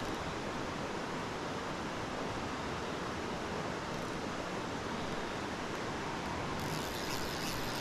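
Mountain stream rushing steadily over rocks, an even wash of water noise, with a brief brighter hiss near the end.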